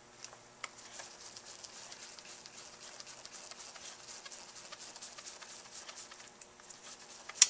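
Screwdriver turning a small brush-plate screw inside a KTM 250/300 electric starter motor housing: a run of faint small clicks and scrapes, several a second, with one louder click near the end.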